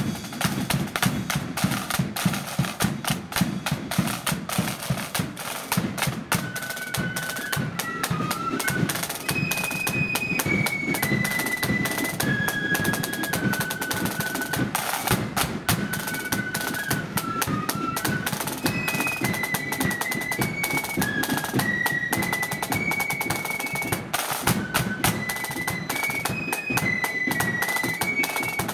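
Marching flute band playing. Side drums and a bass drum play alone for about six seconds, then the flutes come in with a high, stepping tune over the continuous drumming.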